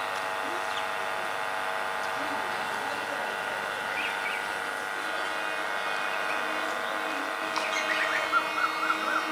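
Birds chirping, with a quick run of short chirps near the end, over a steady hum made of many even tones.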